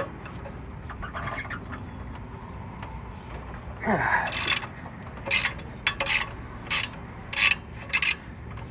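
Socket ratchet being worked back and forth on an alternator mounting bolt. From about four seconds in it makes a short burst of clicks on each stroke, roughly one every half second or so.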